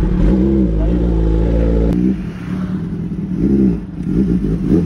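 Kawasaki ZX-10R's inline-four engine idling with two quick throttle blips, the revs rising and falling each time, one just after the start and one about three and a half seconds in. The engine sound drops abruptly about two seconds in.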